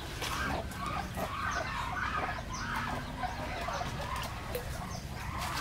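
Chickens clucking on and off, with a rustle of guava-tree leaves as fruit is picked.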